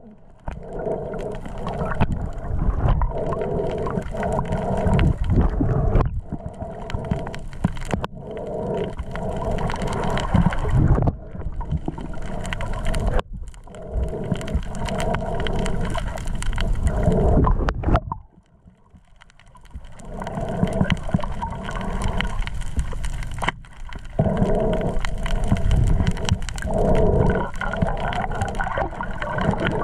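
Muffled underwater noise heard through a submerged camera housing: a steady rush and gurgle of water as the diver swims, with a few sharp clicks. It drops away briefly about two thirds of the way through.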